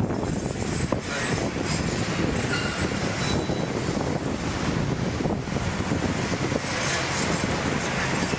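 Caterpillar 352 excavator running while its sorting grapple drops and drags scrap iron in a steel container: continuous metallic clatter and scraping, with brief squeals of metal on metal near the middle.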